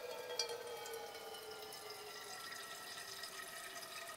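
A steady whistle slowly falling in pitch, with a few sharp crackles, as from steam escaping out of damp wood burning in a campfire.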